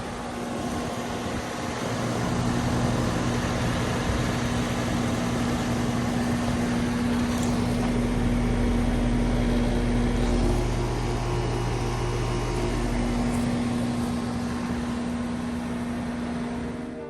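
2015 two-ton Lennox Merit heat pump outdoor unit running: a steady hum over a broad, even hiss, with a deeper rumble joining in the middle.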